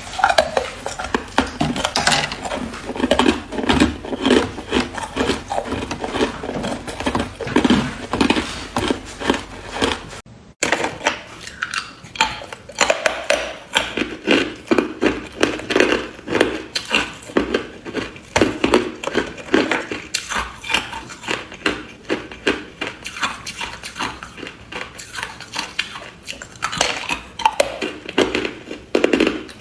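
A person biting and chewing ice, a fast, continuous run of loud, crisp crunches, close to the microphone. The crunching breaks off for a moment a little over a third of the way in, then carries on.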